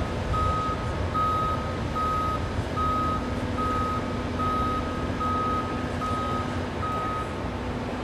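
Backup alarm on heavy construction equipment beeping at one steady pitch, about one beep every 0.8 s, stopping about seven seconds in. A diesel engine's low rumble runs underneath.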